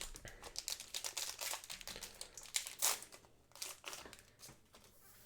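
Plastic wrapper of a Digimon card booster pack crinkling in the hands as the pack is opened: a dense run of crackles that thins out near the end.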